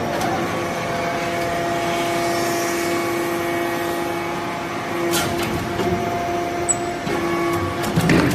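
Hydraulic power unit of a vertical metal-chip briquetting press running with a steady hum, with short sharp knocks about five seconds in and again near the end as the press works through its cycle.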